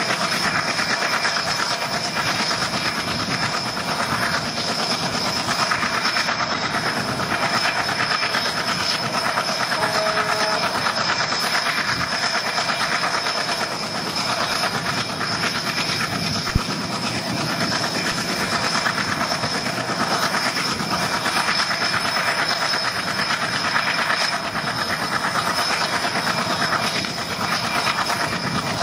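Passenger train running, heard from on board: a steady rumble and rattle of the wheels on the rails, with a single sharp knock about halfway through.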